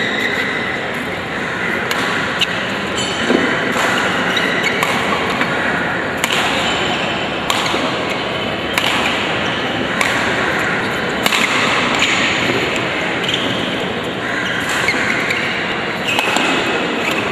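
Badminton rackets hitting the shuttlecock back and forth in a rally, a sharp crack every second or so, echoing in a large hall over a steady background of crowd noise.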